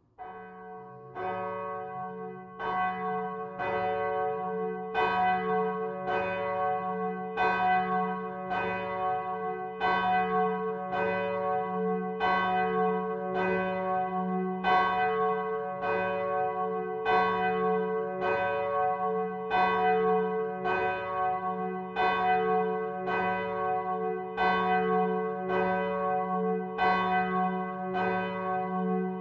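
A large swinging bronze church bell, cast by Michiels of Tournai in 1957, starts ringing: the first strokes are softer as it swings up, then it strikes steadily, about once every 0.8 seconds. Each stroke leaves a long humming ring under the next.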